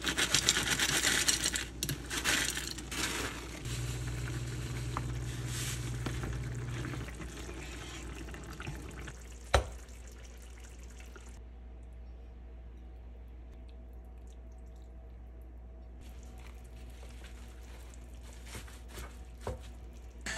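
Spicy tofu sauce simmering in a pan and being stirred with wooden spoons, with a low hum for a few seconds. One sharp click comes about nine and a half seconds in, and after it only faint kitchen sounds remain.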